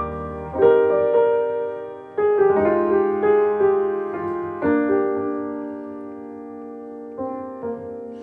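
Slow piano chords, each struck and left to ring and fade, a new chord coming every two seconds or so, with two softer notes near the end.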